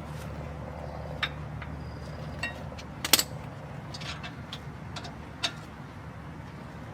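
Sharp metallic clicks and clinks of tools and brake parts being handled during a brake pad job. There are about five scattered knocks, the loudest a quick double clink about three seconds in, over a steady low hum.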